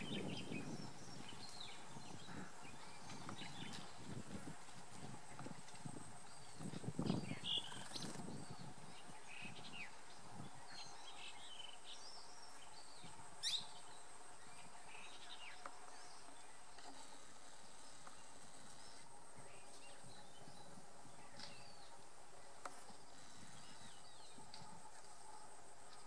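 Forest ambience of scattered short bird chirps over a steady high insect drone. Low rustling comes at the start and again about seven seconds in, and there is one sharp click about thirteen seconds in.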